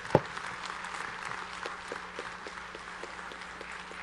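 Audience applauding steadily. Two sharp thumps come right at the start, louder than the clapping.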